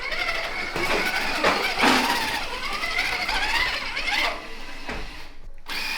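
Whine of a radio-controlled rock crawler's small electric motor and gears, rising and falling in pitch as the truck is driven, with a brief break near the end.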